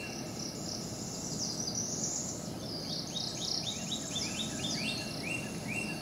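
Outdoor wildlife chirping: short rising chirps repeated about twice a second, broken by a faster run of higher chirps in the middle, with fainter high chirping throughout over a low steady background.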